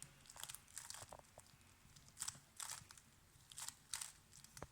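Faint clicks of a 3x3 Rubik's cube's plastic layers being turned, in quick little groups of turns with short pauses between, while the cross is being solved.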